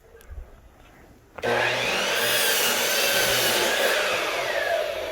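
A power saw starts suddenly about a second and a half in and cuts through wood, loud and steady, its pitch sagging toward the end before it stops.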